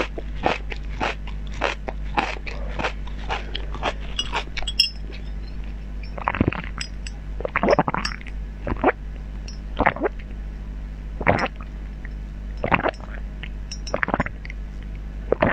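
Close-miked crunching bites and chewing at the mouth. Quick, about three crunches a second, for the first five seconds or so, then slower, scattered crunches.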